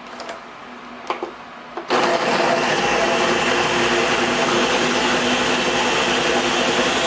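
Countertop blender switched on about two seconds in, its motor running steadily as it purées avocado, roasted tomatillo and jalapeño into a sauce. A few light clicks come just before it starts.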